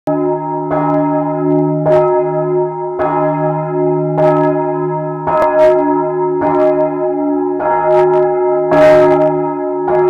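Large church bell swung and rung at close range in its bell chamber: the clapper strikes about once a second, nine strokes in all, over a steady ring that hangs on between strokes. Heard from right beside the bell, it is too loud for the camera's microphone.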